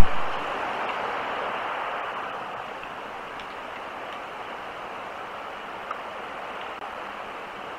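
A sharp pop as the cam's audio switches on, then a steady hiss of light rain on wet ground, with a few faint ticks like drips.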